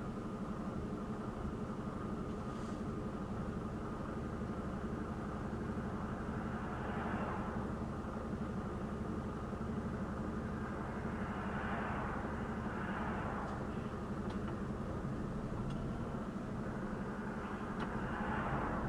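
Articulated lorry's diesel engine running at a steady speed, with a few brief swells of rushing noise on top.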